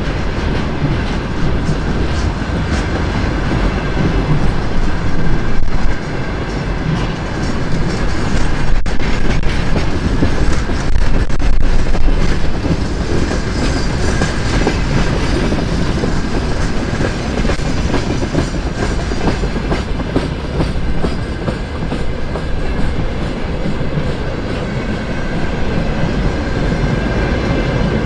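Freight train rolling past, its wagon wheels clattering steadily over the rail joints. A thin, high, steady tone runs underneath.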